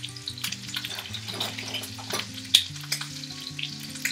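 Lamb shoulder searing in a hot frying pan, its fat sizzling and crackling steadily, with one sharp click about two and a half seconds in.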